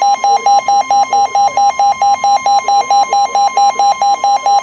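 NOAA Weather Radio's steady 1050 Hz warning alarm tone, overlaid by a weather radio receiver's buzzy alert beeping about four times a second. The alarm signals that a new warning is about to be read.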